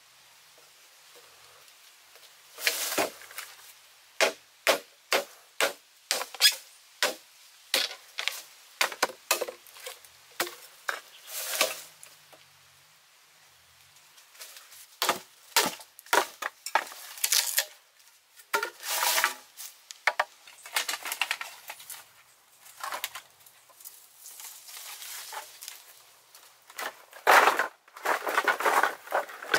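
A knife chopping into green bamboo: a run of sharp strikes about twice a second, then irregular blows mixed with longer rasping, cracking sounds as the stalks are split.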